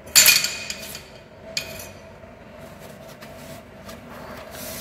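Stainless steel tube handle clanking against a hard surface, ringing briefly, then a second lighter clank about a second and a half in, followed by rubbing and handling sounds.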